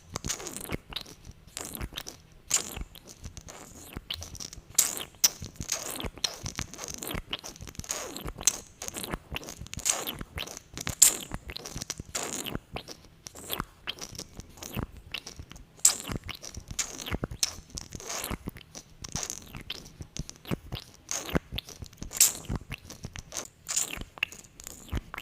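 Close-miked ASMR mouth sounds from lips coated in gloss: rapid, irregular sticky smacks and clicks as the lips press together and pull apart.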